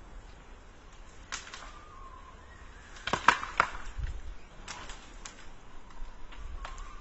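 Branches and twigs cracking and snapping as a conifer is pulled by hand. The loudest cracks come in a quick cluster about three seconds in, followed by a dull thud.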